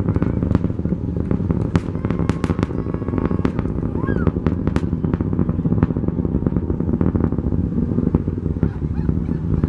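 Rocket engine noise heard from the ground as the rocket climbs: a steady low rumble with frequent sharp crackles and pops.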